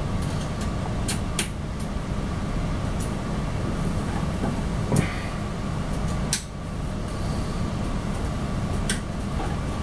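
Scattered light clicks and taps of small screws and metal parts being handled while a UV light transformer is unscrewed from a resin printer's frame, over a steady low rumble.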